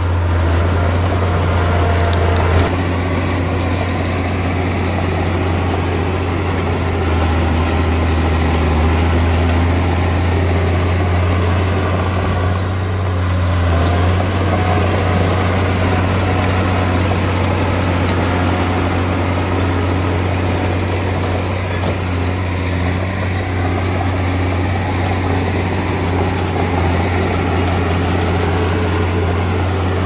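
Diesel engine of heavy earthmoving machinery running, a steady low drone with small shifts in pitch.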